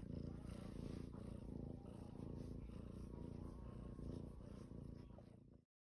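A cat's low, steady, faint rumble from close by. It fades slightly and then cuts off abruptly near the end.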